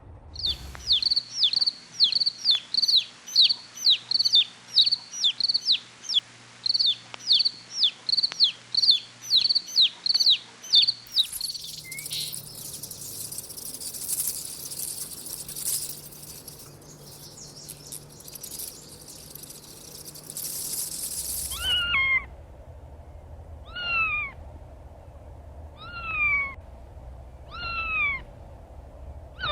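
For the first ten seconds or so, a rapid series of short high squeaks, each falling in pitch, about two a second; then a stretch of high hiss. In the last part, a kitten meows five times, about two seconds apart, each meow falling in pitch.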